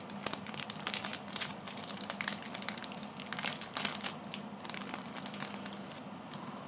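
Thin plastic wrapper of a packaged round cake crinkling as it is torn open and peeled back, a quick run of sharp crackles that dies down after about four and a half seconds.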